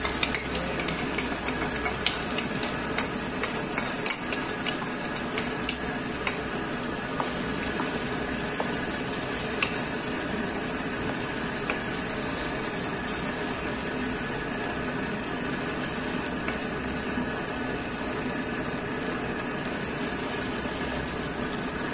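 Chicken pieces and tomato sauce sizzling in a nonstick frying pan while a wooden spatula stirs them, with scattered light taps and scrapes of the spatula against the pan, most of them in the first several seconds.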